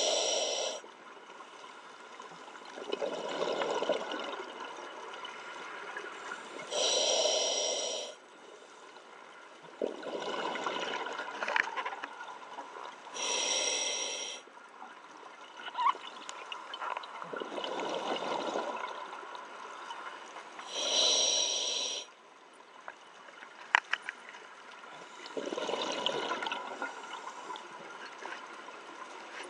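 Scuba diver breathing through a demand regulator underwater. A hissing inhalation comes about every seven seconds, each followed a few seconds later by a gurgling rush of exhaled bubbles. A couple of sharp clicks fall in the second half.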